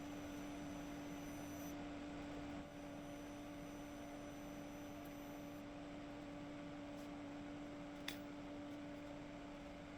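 Steady electrical hum from a TIG welder during brazing, with a faint click about eight seconds in.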